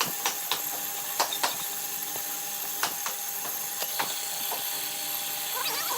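Carpentry work: about seven scattered, uneven sharp knocks and taps of tools on wood over a steady background hum.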